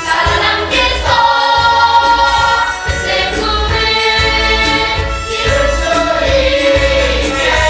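A musical-theatre ensemble sings together over a full band accompaniment with a pulsing bass beat.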